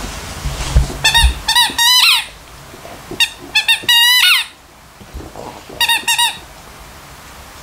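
Rubber squeaky dog toy squeaking in short bursts of several quick squeaks, with pauses between, as a dog bites and presses it. There are a few dull thuds near the start.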